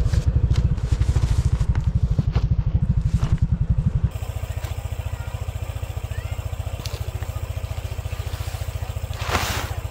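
Motorcycle engine running at idle with a steady low pulse, louder for the first four seconds and then settling to a lower level. A brief hissing rustle comes near the end.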